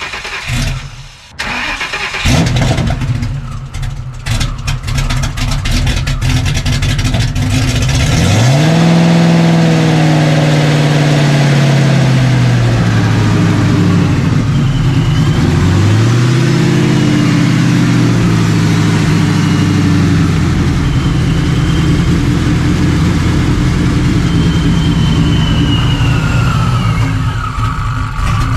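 Supercharged 4.6-litre three-valve V8 of a 2009 Ford Mustang GT cranking on the starter for several seconds, catching about eight seconds in with a quick rev that falls back, revving once more midway, then idling. This is the first start after the rebuild, with no tune loaded yet.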